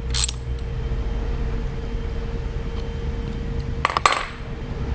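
Small motorcycle parts being handled: a short clatter right at the start and another brief clink about four seconds in, over a steady low hum with a faint whine.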